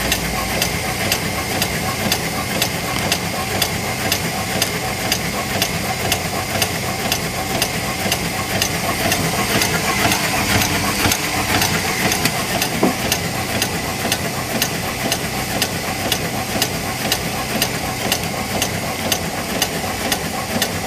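Automatic bag-packing machine with a thermal transfer overprinter running in production: a steady mechanical hum with an even clicking, about two and a half strokes a second, as it cycles through bags.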